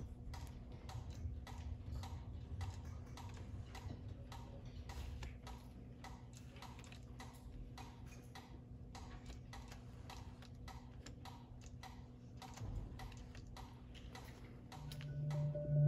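Steady, even ticking, about two and a half clicks a second, like a clock or metronome. About a second before the end a low held musical note comes in and is the loudest sound.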